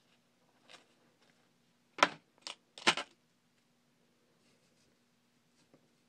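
Scissors snipping a clump of deer hair off the hide: three short, sharp, crunchy snips close together about two to three seconds in.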